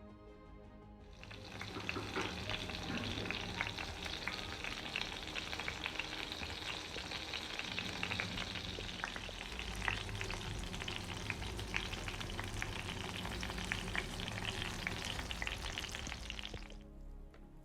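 Marinated eggplant slices sizzling in hot mustard oil in a pan, a dense crackle of tiny spits. It starts about a second in and cuts off shortly before the end.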